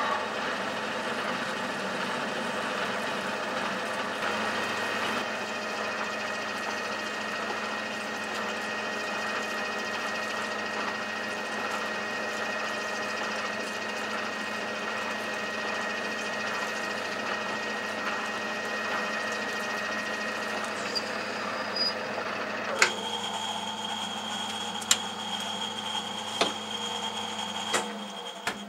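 Metal lathe running at slow speed with an out-of-balance, off-centre disc in a four-jaw chuck while a 9/16 inch twist drill is fed into it, a steady running whirr. About three-quarters of the way through the sound changes and a few sharp clicks come in; near the end the lathe is switched off and runs down.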